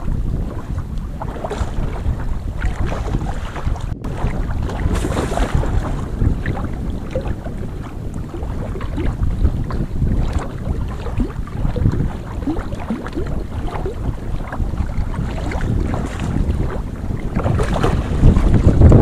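Wind buffeting the microphone over lapping lake water. Near the end, a hooked fish thrashes and splashes at the surface.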